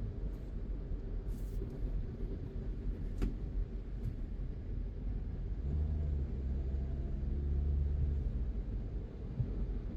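A car driving along a road, with a steady low rumble of road and engine noise. A deeper, louder engine hum comes in about six seconds in and eases off about two to three seconds later. There is a single sharp click about three seconds in.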